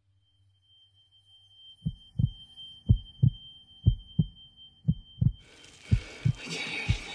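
Heartbeat sound effect: low thumps in pairs, about one pair a second, beginning about two seconds in, over a faint high steady tone. A little after five seconds the tone stops and a rush of noise comes up beneath the beats.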